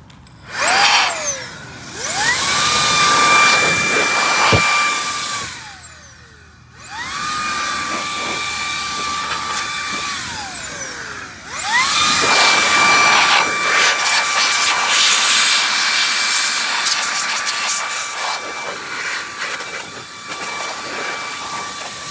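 Blower run in four bursts, each spinning up to a steady high whine with a rush of air and then winding down: a short blip, two runs of about three seconds, and a long run of about ten seconds. It is blowing dead ants and dirt out of a gate motor housing.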